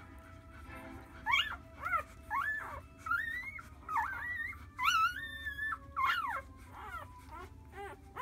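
Newborn golden retriever puppies squeaking and whimpering while nursing: a run of short, high cries that rise and fall, with one drawn out for nearly a second midway.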